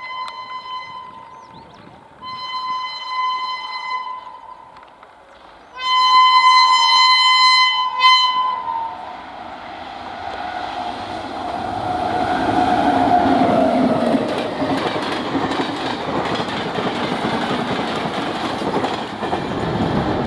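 An Indian Railways WAP-7 electric locomotive sounding its horn in three long blasts, the last the loudest. Then the train passes at speed, its wheels and wagons rolling by on the rails.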